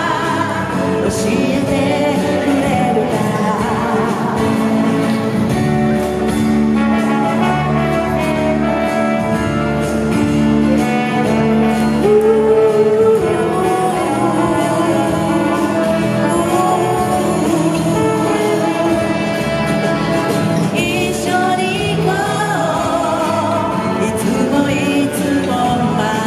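Japanese pop song: a vocal sung over an instrumental backing track.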